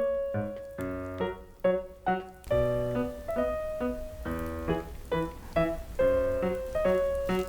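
Background piano music: a melody of short, separate notes at a steady pace, with some notes held.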